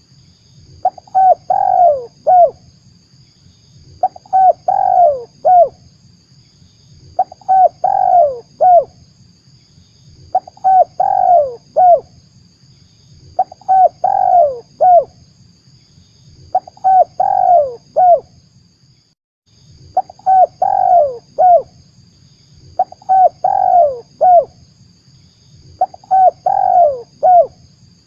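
Spotted dove cooing: the same short phrase of a few coos, one of them longer and falling, repeated about every three seconds, a lure call used to draw in wild doves for trapping.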